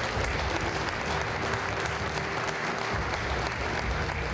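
Audience applauding, with steady clapping from a crowd of many people.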